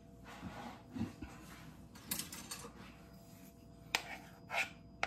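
Soft rustling and clicking of small objects handled at a counter, with one sharp click about four seconds in.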